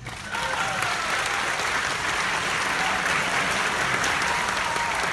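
A theatre audience clapping, starting right at the beginning and going on steadily throughout.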